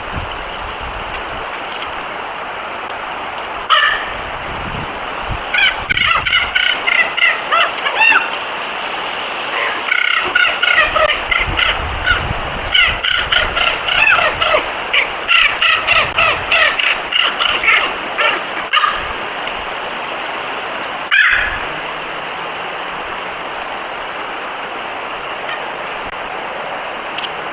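Animal calls: a rapid series of short, high, pitched cries in clustered runs of several a second, with single louder calls before and after the runs, over a steady background hiss.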